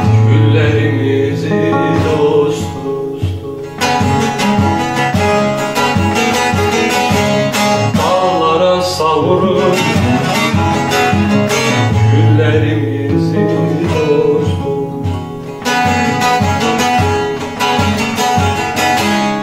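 Bağlama (long-necked Turkish saz) played with fast plectrum picking, many quick plucked notes.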